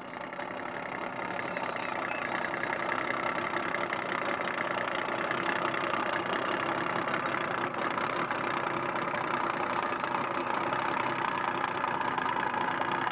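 Boat motor running steadily at low speed, growing a little louder over the first couple of seconds and then holding even.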